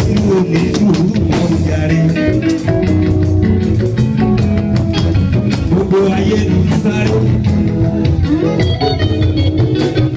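Live band music with a steady beat: electric guitar and bass lines over drums.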